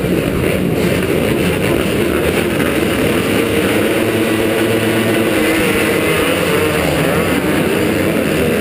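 A pack of motocross bikes, the rider's own KTM 250 SX two-stroke loudest, revs at the start gate, then goes to full throttle as the gate drops and the pack launches about halfway through, engine pitch rising as they accelerate.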